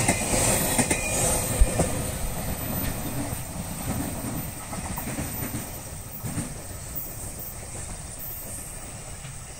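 Freight train's container wagons rolling past and drawing away, the wheel rumble fading steadily, with a sharp knock about one and a half seconds in.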